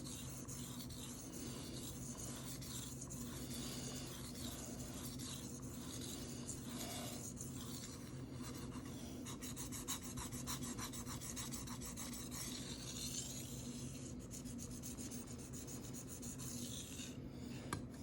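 A steel knife blade being stroked back and forth over a wet Shapton Rockstar 1000-grit whetstone, a repeated soft scraping rasp. These are the sharpening strokes that raise a burr along the edge.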